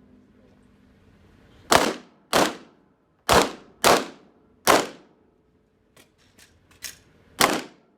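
Six shots from a Glock 17 9 mm pistol, fired singly in irregular pairs and singles, each with a short echoing tail. A few faint knocks come between the last two shots.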